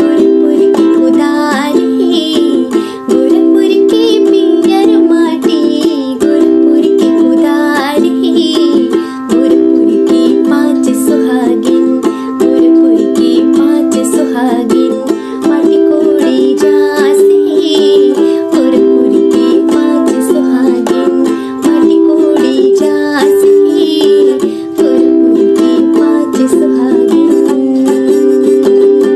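Ukulele strummed in steady, repeated chords, playing the tune of a Bhojpuri wedding song (vivah geet).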